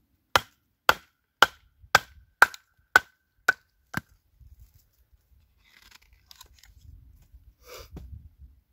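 Hatchet chopping into hard wood: eight sharp blows at about two a second, each with a brief ringing. The blows are followed by softer handling and rustling of the wood.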